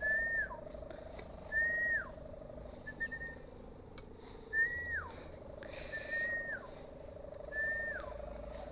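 A kite's sendaren, the hummer bow on a large pegon kite, droning steadily at one wavering pitch. Over it a bird repeats a short whistled call about once a second, each note held high and then falling.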